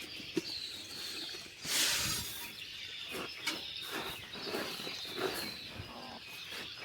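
Chicken feed poured out of a bucket in one short rush about two seconds in, amid light rustling and scattered high bird chirps.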